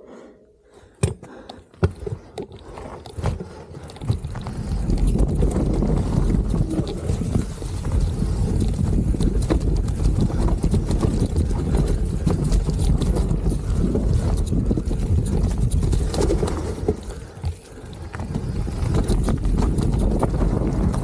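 Full-suspension mountain bike riding down a dirt trail covered in dry leaves, with scattered clicks and knocks from the bike rattling over the ground. About four seconds in, a loud, steady low rumble of wind and trail noise on the camera microphone builds up. It dips briefly near the end, then returns.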